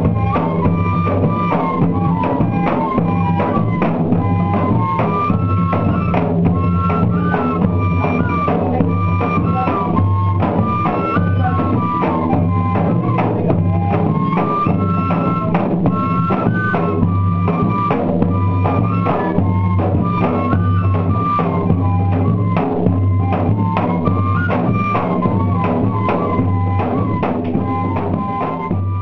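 Pífano (Brazilian cane fife) playing a stepping folk melody over a steady beat of bass drum and other percussion, the sound of a northeastern banda de pífanos. It begins to fade out near the end.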